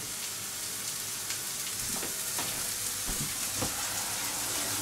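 Chopped onion sizzling steadily in oil in a frying pan, with a few faint knocks of kitchenware.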